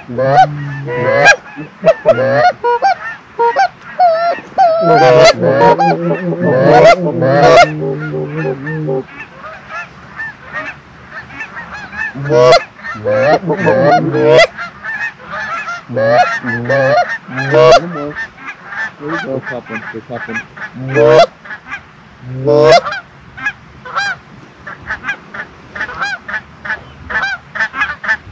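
Canada geese honking and clucking in quick, overlapping calls, densest over the first nine seconds, then in spaced bursts that grow fainter near the end: a flock calling as it comes in to the decoys.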